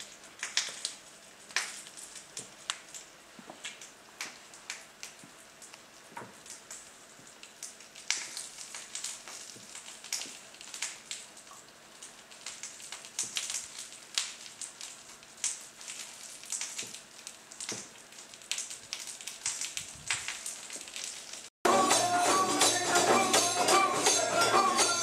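Burning hand-held torch crackling and sputtering with irregular sharp pops over a faint steady hum. About three and a half seconds before the end it cuts abruptly to loud music.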